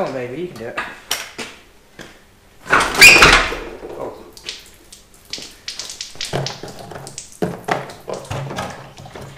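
Metal knocks and clanks from an engine being worked out of a car's engine bay, with a short creak at the start and one loud clattering crash about three seconds in.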